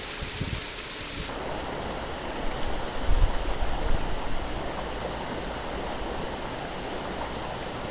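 River current rushing over rocks, a steady rush of water. A few low thumps sound on the microphone about three seconds in.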